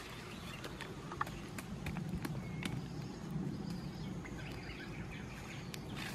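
Wood campfire crackling, with scattered sharp pops and snaps over a steady low background.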